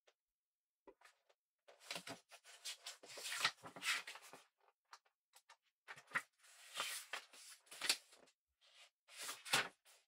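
Ballpoint pen writing on paper: quick scratchy strokes in three bursts with short pauses between, starting about two seconds in.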